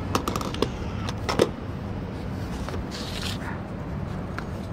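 A few sharp clicks and knocks as a plastic food tray and foil wrapping are handled and set down on paved ground, over a steady low outdoor rumble.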